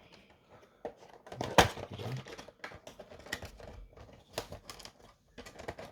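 Handling of a boxed figure's cardboard box and plastic packaging: scattered clicks and taps with light crinkling, the sharpest click about a second and a half in.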